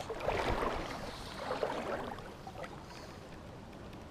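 River water rushing and lapping close to the microphone, uneven and louder for the first couple of seconds, then settling into a quieter steady flow.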